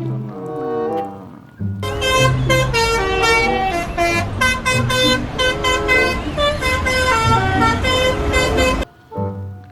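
A fast melody of loud horn-like notes, with a low bass note and a beat under it. It starts about two seconds in after a short gliding passage and stops near the end.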